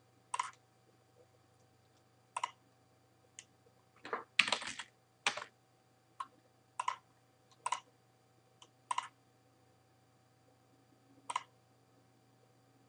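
Scattered single clicks from a computer keyboard and mouse, about a dozen in all, with a short run of keystrokes about four seconds in.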